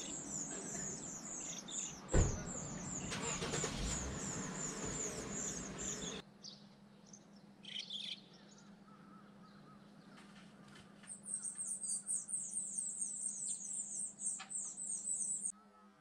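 A brood of nestling birds calling: rapid, high-pitched begging chirps, many a second, in two long runs, with a quieter gap between them. A single thump about two seconds in.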